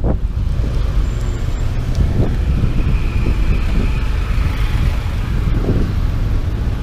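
A steady low rumble of wind and road noise on the bike-mounted microphone as the bicycle rides along, with the engines of a queue of slow-moving cars alongside.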